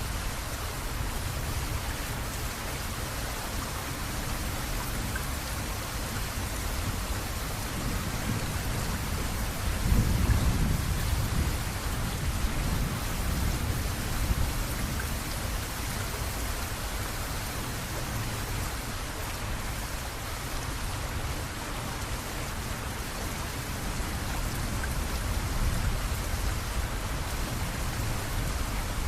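Steady heavy rain, with a low rumble of thunder swelling about ten seconds in and fading over the next few seconds.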